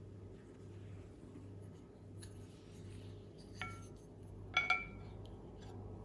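Wooden spoons clinking against a ceramic soup bowl: a light tap about three and a half seconds in, then a louder, ringing double clink a second later, over a faint steady low hum.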